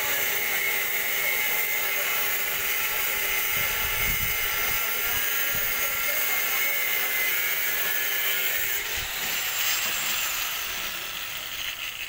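Electric angle grinder cutting a steel tank turnbuckle: a steady high whine with grinding hiss. The note changes about nine seconds in, and the sound grows quieter over the last two seconds.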